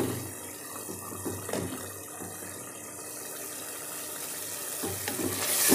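Beef curry with tomato masala sizzling in oil in a pot as it is stirred with a wooden spoon, with a few knocks of the spoon against the pot. The meat is being fried down (bhuna) now that its cooking water has nearly dried off.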